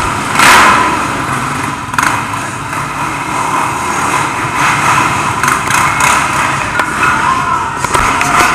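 Sport ATV engines running and revving hard, loudest about half a second in, with a sharp knock about two seconds in.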